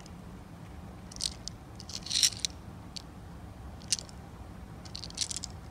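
Czech glass tulip beads sliding and clicking against each other and the walls of a small clear plastic box as it is tilted in the hand: four short rattles, the loudest about two seconds in, over a faint steady hum.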